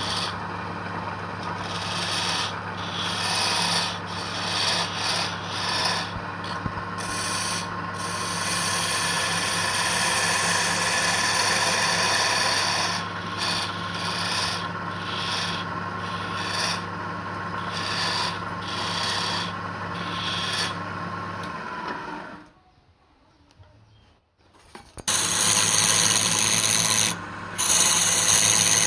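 An electric motor hums steadily while wood is rasped in repeated strokes. Both stop a little over twenty seconds in. After about three seconds of quiet, louder rasping on wood starts again.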